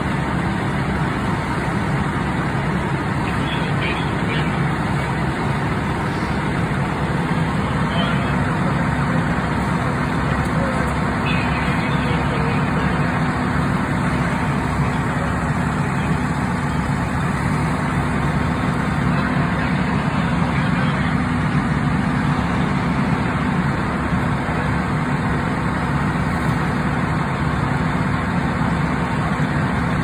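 Fire engine's diesel engine running steadily at a constant speed, driving the pump that feeds the hose line, with a continuous low hum. Faint voices come through now and then.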